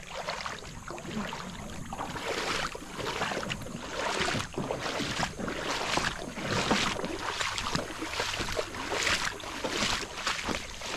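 Boots wading through a shallow creek, each step sloshing and splashing water, at a steady walking pace of about two steps a second.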